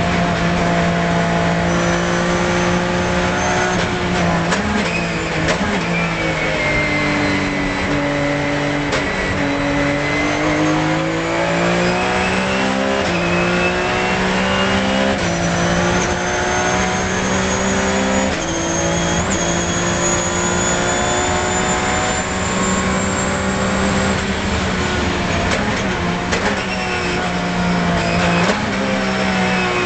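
Porsche 997 GT3 Cup's flat-six racing engine heard from inside the car at race pace, its note dipping and climbing and stepping between gears. A high thin whine rises and falls above it.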